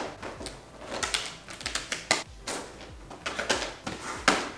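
Stacked plastic bento meal-prep containers clacking and scraping against each other and a plastic basket bin as they are set upright in it. An irregular run of clicks and knocks, the loudest knock near the end.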